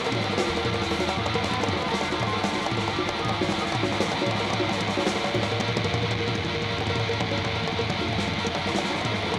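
Live rock band playing an instrumental passage: drum kit, electric guitar and a bass guitar repeating a low figure.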